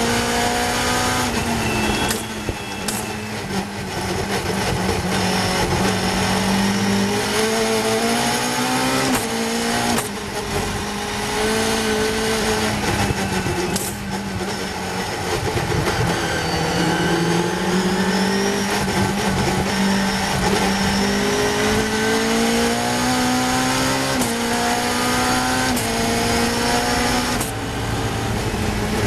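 Caterham racing car's Cosworth 2.4 four-cylinder engine under racing load, heard from the open cockpit with wind noise. The pitch climbs steadily through each gear and drops sharply at the gear changes and at the lifts for braking, several times over.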